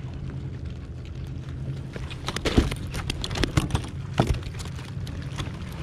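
A burst of sharp clicks, knocks and rattles from a fish and gear being handled in a plastic kayak, between about two and four seconds in, over a steady low hum.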